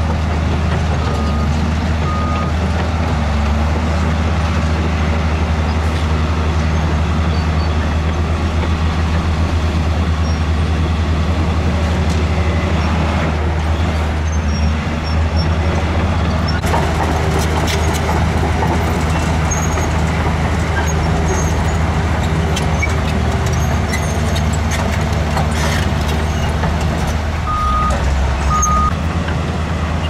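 Heavy diesel engines of a tipper dump truck and a Komatsu crawler bulldozer running steadily under work, with dirt and rock sliding out of the truck's raised tipper bed. A reversing alarm beeps twice near the start and twice near the end.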